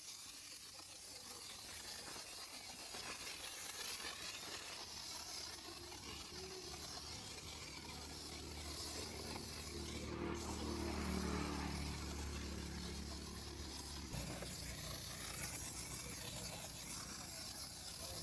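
Water spraying from a garden hose onto a soaped-up motorcycle, a steady hiss. A low mechanical hum joins about a third of the way through and cuts off suddenly about three quarters of the way in.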